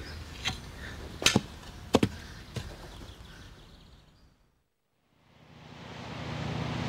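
A few sharp knocks over faint outdoor background, the loudest two about a second and a half and two seconds in. The sound fades to silence just past the middle, then the rush of rough sea fades in with the low steady drone of a fishing boat's engine.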